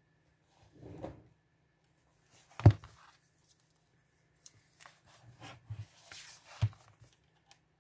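Paper and a handmade junk journal being handled on a tabletop: a sharp knock about two and a half seconds in, paper rustling, and another knock about a second before the end.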